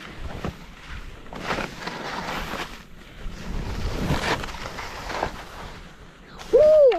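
Skis hissing and scraping through chopped snow in a run of turns, with wind buffeting the microphone. Near the end comes a short, loud pitched call that rises and falls in pitch.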